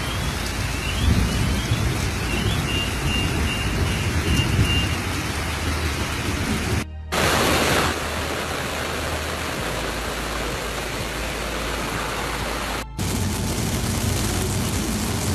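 Heavy rain falling in a storm: a steady, dense hiss, with a louder surge about seven seconds in. The sound drops out briefly twice.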